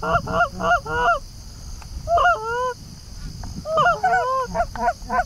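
Canada geese honking and clucking: a fast run of short clucks in the first second, then two groups of longer overlapping honks about two and four seconds in.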